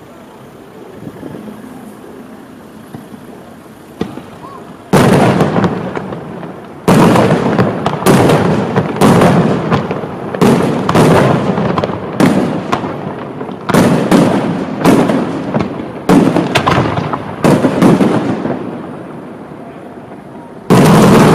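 Fireworks display: after a quieter first five seconds, a rapid series of loud aerial shell bursts, around fifteen over the next thirteen seconds, each trailing off in an echo. After a brief lull, one more loud burst comes near the end.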